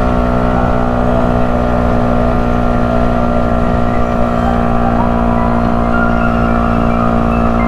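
Yamaha YZF-R125's 125 cc single-cylinder four-stroke engine running at steady cruising revs under way, its note unchanging, with wind rush underneath.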